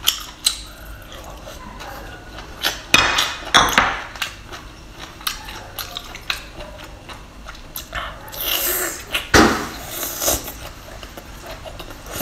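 Close-up eating sounds of a person chewing saucy seafood: wet smacking and squelching with many small sharp clicks, and louder noisy bursts about a quarter of the way in and again about three quarters through.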